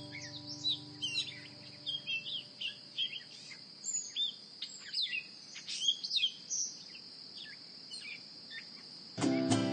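Small birds chirping and twittering in quick short calls over a steady high-pitched drone, a nature-ambience bed. A held music chord fades out in the first two seconds, and guitar music comes back in near the end.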